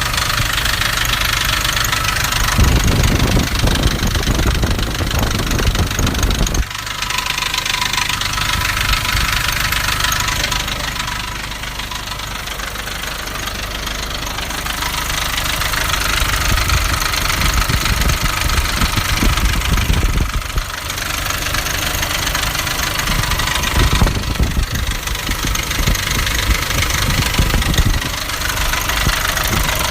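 Nissan Navara D40's 2.5 dCi four-cylinder turbodiesel running with a knocking rattle. It sounds like a dual-mass flywheel rattle but comes from a cracked intake manifold.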